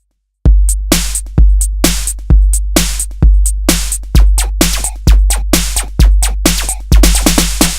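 Electronic music: after about half a second of silence, a drum-machine beat comes in. A deep kick with sub-bass lands about once a second, with quick clicking percussion between the hits.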